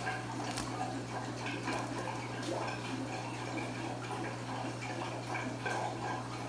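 Faint water dripping and splashing as a wet aquarium net is handled over a bucket of water, over a steady low hum.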